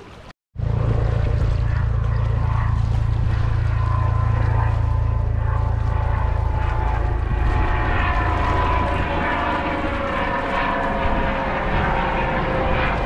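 A low-flying Coast Guard aircraft passing overhead: a steady engine drone that cuts in after a brief dropout about half a second in. Its tones sink slowly in pitch in the later part.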